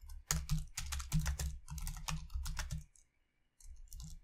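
Typing on a computer keyboard: a quick run of keystrokes, a short pause about three seconds in, then more keys.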